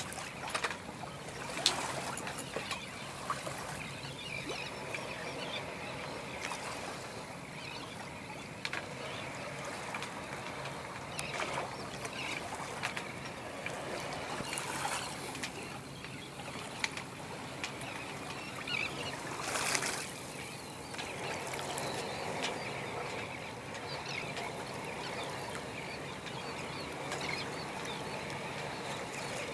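Water washing along the hull of a small boat under way, with scattered short calls and clicks over it.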